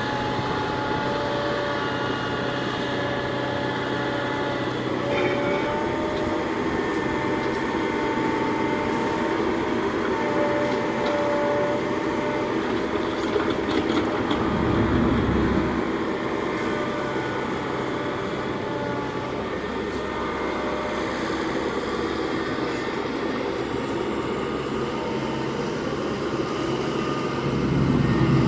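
Heavy diesel earthmoving machine at work: the engine runs steadily under a whine of hydraulics that shifts pitch as it works. The engine swells louder under load about halfway through and again near the end, with a few faint clanks.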